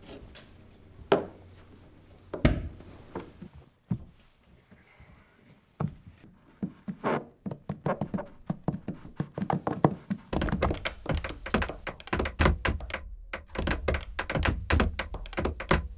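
A series of knocks and thumps: a few spaced out at first, then coming faster from about six seconds in, and turning into a rapid, dense run of taps over a low rumble for the last six seconds.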